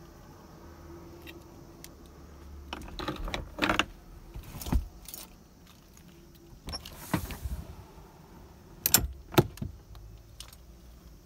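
Knocks, clicks and rattles from the cabinet and hatch fittings inside a camper being handled. They come in a few clusters, ending with two sharp clicks about half a second apart, over a faint steady hum.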